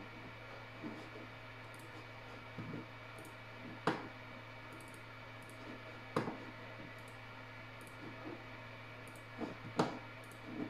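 A handful of sharp computer-mouse clicks a few seconds apart, over a steady low hum.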